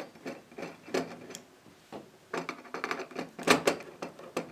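A screwdriver backing screws out of a trunk's metal latch: irregular small clicks and scrapes of metal on metal, sparse at first and busier after about two seconds.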